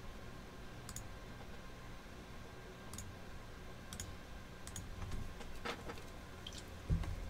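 A few scattered single computer clicks, about five spread over several seconds, over a low steady room hum, then a duller, louder knock near the end.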